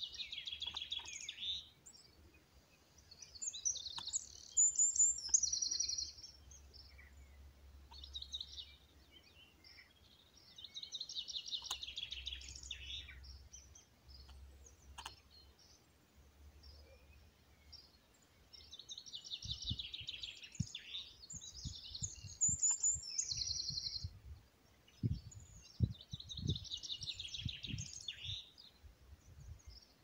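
A songbird singing outdoors in repeated phrases a few seconds long, with pauses of a few seconds between them. Low rumbling thumps run under the song in the second half.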